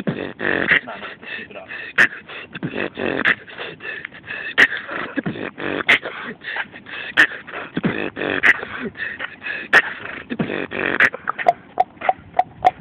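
A vocal beat in beatboxing style, a sharp hit about every second and a third over a dense run of mouth sounds, thinning out near the end.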